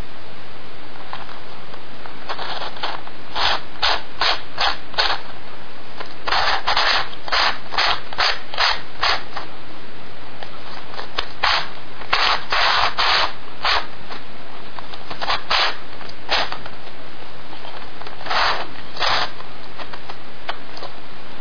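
Plastic pieces of an F-Skewb twisty puzzle scraping and clicking as its faces are twisted by hand, in quick runs of short turns with brief pauses between, ending a couple of seconds before the end.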